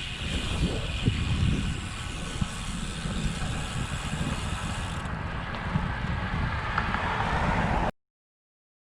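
Wind buffeting the microphone of a camera on a moving bicycle, a steady rumble and rush with road noise beneath it. It cuts off abruptly into silence near the end.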